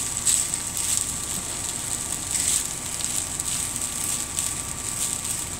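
Rice and soy sauce frying in a hot nonstick skillet, a steady sizzle with fine crackles as it is stirred with a spatula.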